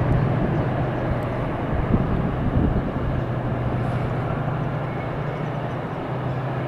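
Distant freight train passing, its locomotives giving a steady low engine drone over a continuous hiss.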